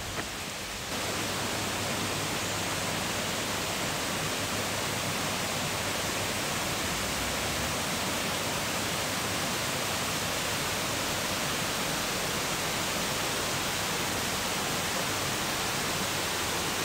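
Rushing creek water, a steady even hiss that gets louder about a second in and then holds.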